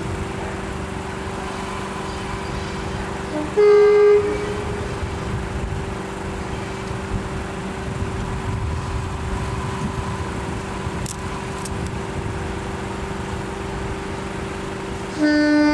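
Class 52 'Western' diesel-hydraulic locomotive approaching under power, its Maybach diesel engines running steadily. Its two-tone horn sounds twice, low note then high: briefly about three and a half seconds in, and again near the end.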